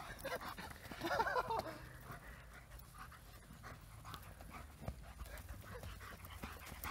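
Young German shepherd panting hard as it runs after a ball, with a short whining cry about a second in.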